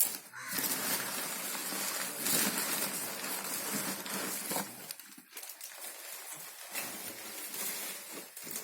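Packaging being opened and handled: a sharp click, then several seconds of dense rustling and crinkling that thins to scattered rustles after about five seconds.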